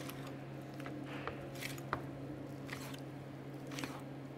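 Knife blade scratching and clicking along venison loin bones as the meat is cut away from the rack, in irregular short scrapes. The scratching is the sign of the blade riding on the bone. A steady low hum runs underneath.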